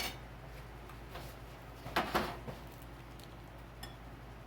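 Raw ground beef being added to a mixing bowl, with a short cluster of soft plops and knocks about two seconds in and a few faint clicks of handling.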